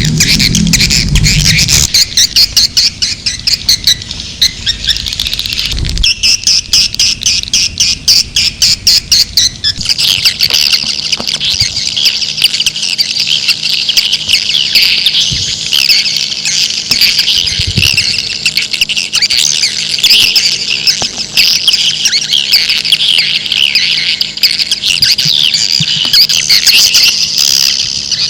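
Swiftlet lure-call recording: many swiftlets chattering in rapid, buzzy twitters. For about the first ten seconds the calls pulse several times a second, then they merge into a dense, continuous chatter over a faint steady hum.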